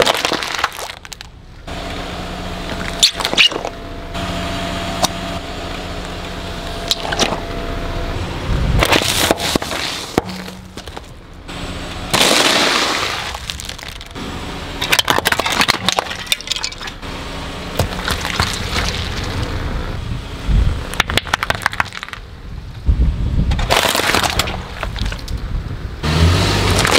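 A car tyre slowly rolling over one object after another on concrete, crushing each: repeated crackling, crunching and snapping of plastic packaging and toys, including a plastic cupcake tray and, near the end, a plastic toy centipede breaking apart.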